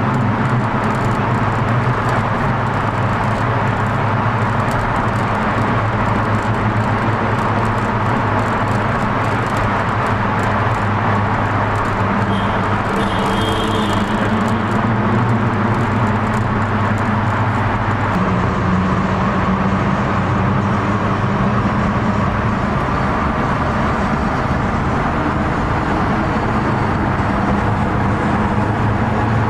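Car engines running steadily amid street traffic noise, a continuous low engine hum whose pitch shifts about eighteen seconds in, with a brief high tone around the middle.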